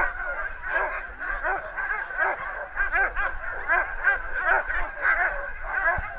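A yard full of sled dogs barking and yipping over one another in a constant, excited chorus.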